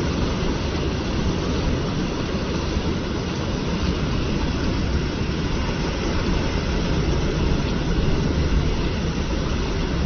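Floodwater pouring over a weir and churning in the turbulent backwash below it: a loud, steady rush of water with a deep rumble, unbroken throughout.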